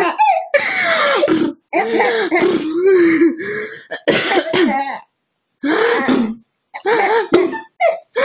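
Two-month-old baby cooing and gurgling: a string of short, pitched vocal sounds with gliding pitch and brief pauses between them.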